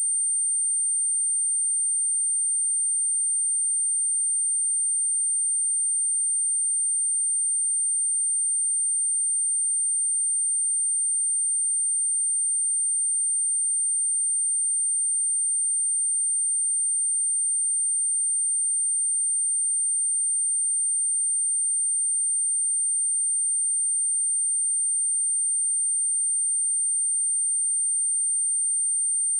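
A pure electronic sine-wave test tone at 8866 Hz, a single steady high-pitched whine held without a break.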